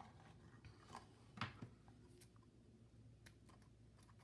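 Near silence: faint clicks and rustles of hands handling a small cardstock box and its twine tie, with one slightly louder click about a second and a half in.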